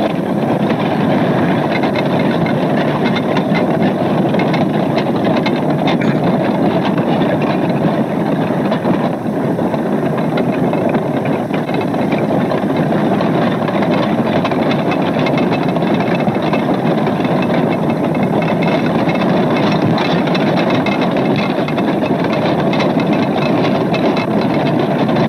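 Slow block-lava front of Hekla advancing: cooled, glassy lava blocks cracking, breaking and tumbling in a steady dense crackle over a rumble, sounding like breaking glass.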